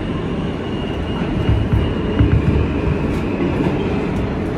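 Kawasaki R160B subway train with Alstom propulsion running on the track: a steady rumble with clacking from the wheels, and a few heavier knocks in the middle.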